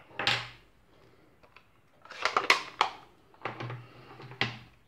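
Rustling and light clicks of crafting supplies being handled on a tabletop: a few short bursts of noise, as the ink pad is cleared off the work mat and the stamped paper is handled.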